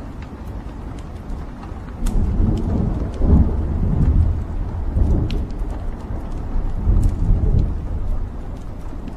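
Wood fire burning in a fireplace: scattered sharp crackles and pops over a low rumble that swells up and dies back several times from about two seconds in.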